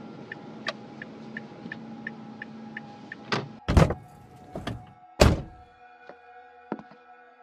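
Car turn signal clicking about three times a second over the hum of a running car. A little past the middle the hum stops and car doors slam shut, several heavy thunks, and then held tones of eerie background music come in.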